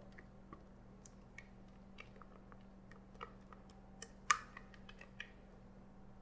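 Faint soft plops and small clicks as thick pumpkin cheesecake batter is poured from a glass mixing bowl into a parchment-lined springform pan, with one sharper click a little past four seconds in, over a low steady hum.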